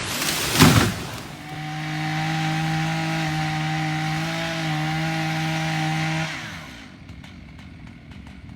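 A loud sharp knock about half a second in. Then a chainsaw runs at steady, even revs for about five seconds before dying away.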